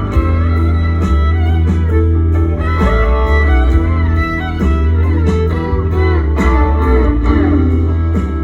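A live band playing a guitar-led passage of a song over a heavy bass line, with wavering, bending lead lines on top.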